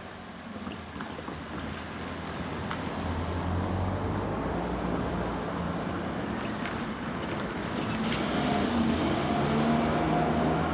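A vehicle running close by, a steady rumble with a low engine hum that grows louder through the clip, over a noisy outdoor background.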